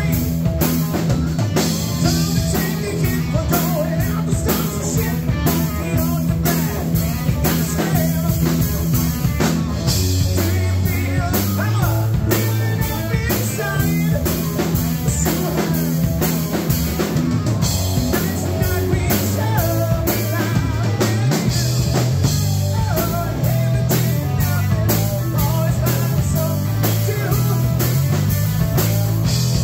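Live rock band playing: electric guitar, electric bass and drum kit, with a steady driving drum beat. The bass line shifts to lower notes about ten seconds in.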